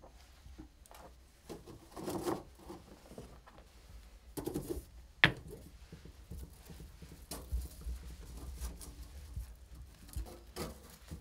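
Small handling sounds indoors: scattered light clicks, scrapes and rustles of objects being moved about, with one sharp click about five seconds in.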